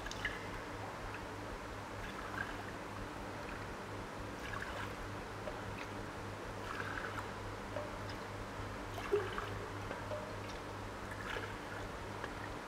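Soy milk being scooped from a stainless steel bowl with a small cup and poured into glass beakers: soft splashing and trickling with a few light knocks of the cup, over a steady low hum.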